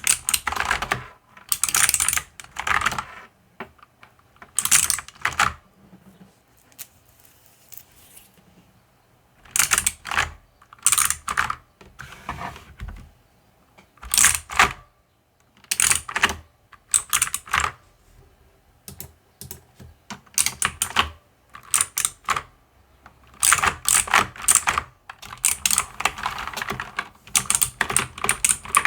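Mechanical keyboard keys being typed in bursts of rapid clicks, with short pauses between runs.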